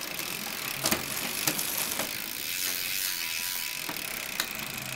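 Mountain bike drivetrain turning over as the cranks are spun by hand: the chain runs with a steady rattle, with a few sharp clicks as the rear derailleur shifts. The chain is dry and under-oiled, so it runs rough and shifts noisily and late, which the mechanic puts down to a bent derailleur hanger and a shift cable that doesn't run smoothly.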